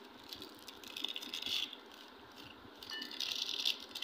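Plastic Oreo biscuit wrapper crinkling as hands work it open, with scattered small clicks and two louder bursts of rustling, about a second in and near the end.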